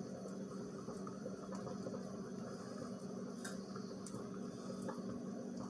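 A knife shaving pieces off a bar of soap into a pot, heard as faint scrapes and a few light clicks over a steady low hum.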